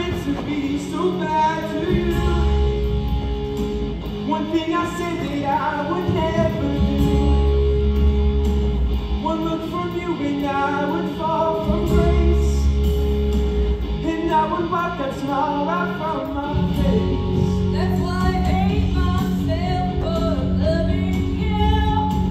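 A rock number from a stage musical: singing over a rock band accompaniment with a steady bass line.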